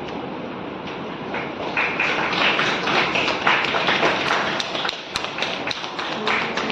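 Many sharp, irregular taps over a steady noisy background.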